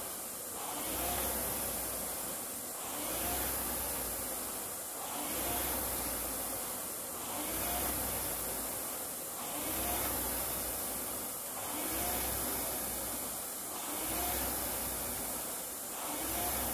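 Air-resistance indoor rowing machine's fan flywheel whirring, swelling with each drive stroke and easing on the recovery, about every two seconds in an even rhythm.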